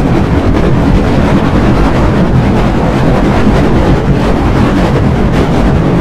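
Loud, heavily distorted, effect-processed logo audio: a dense, steady roar with no clear tones or voices.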